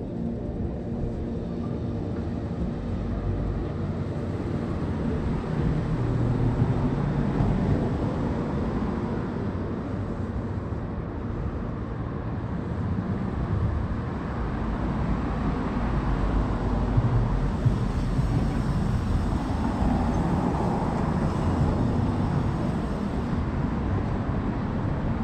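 Street ambience: a steady wash of traffic noise from cars on the boulevard, swelling for a few seconds past the middle as a car goes by.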